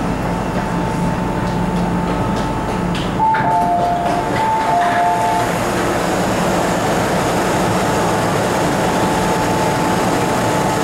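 MTR M-Train (Metro Cammell EMU) standing at a platform, with a steady hum. About three seconds in there is a click, then an electronic two-tone chime alternating high and low notes for about two seconds.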